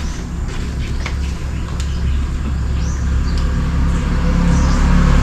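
A motor vehicle's engine running nearby, a steady low rumble growing steadily louder as it approaches, with faint bird chirps.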